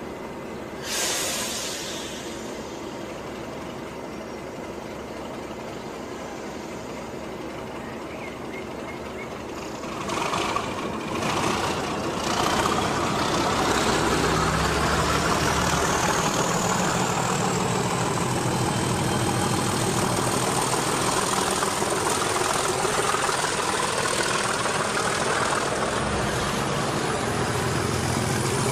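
A short hiss about a second in, then a Class 37 diesel locomotive's English Electric engine opens up as the train pulls away, its turbocharger whistle rising steadily in pitch over several seconds as the engine keeps working hard.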